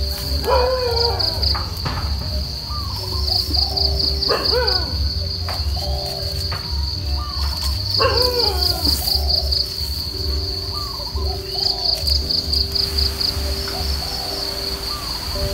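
Insects trilling in rapid, high-pitched pulses, with bird calls rising and falling every few seconds.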